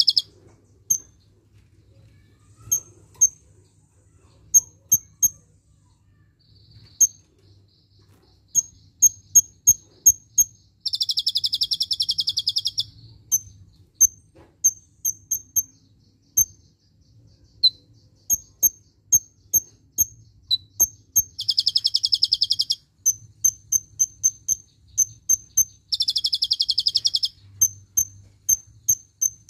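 A caged kolibri ninja (black sunbird) singing. It gives runs of short, high, sharp chirps, broken three times by long rapid trills of about one and a half to two seconds each. These trills are the 'cililin'-style shots (tembakan) that its song is loaded with.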